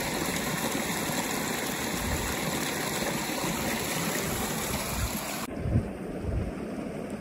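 Fast-flowing mountain creek water rushing and splashing right at the microphone, steady and dense. About five and a half seconds in it cuts off abruptly to a much quieter low rumble with a soft thump.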